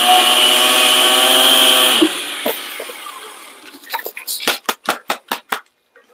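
Blender motor running at speed, grinding pork rinds into crumbs, and cutting off about two seconds in. A run of quick knocks follows later.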